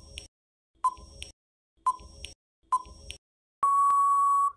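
Quiz countdown timer sound effect: a clock-like tick about once a second, three times, then a steady beep of about a second near the end signalling that time is up.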